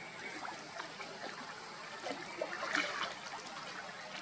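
Light splashing and lapping of water as several macaques swim through a muddy pool, with a slightly louder stretch about three seconds in.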